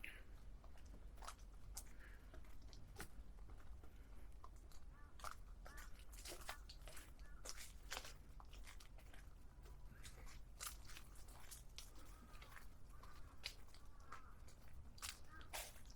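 Footsteps crunching on dry leaf litter and twigs on a forest trail: irregular sharp crackles, at times several a second, over a faint steady low hum.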